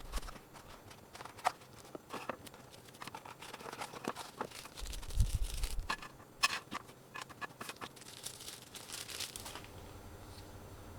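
Packaging being opened by hand: tearing and crinkling with scattered clicks and handling knocks, and a dull thump about five seconds in. The handling stops near the end, leaving a faint steady hum.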